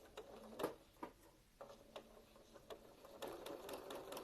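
A few scattered clicks and taps, then about three seconds in a sewing machine starts stitching, a faint steady hum with rapid needle ticking.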